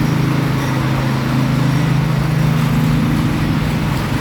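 Petrol engine of a concrete power trowel (power float) running steadily, a continuous low drone as it floats a freshly poured slab after initial set.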